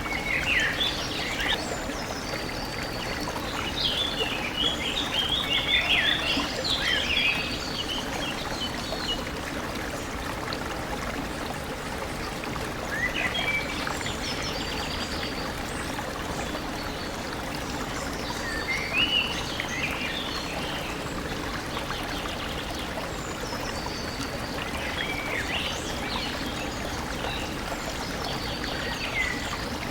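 A stream running steadily, with a bird singing over it in bouts of quick chirping notes every several seconds.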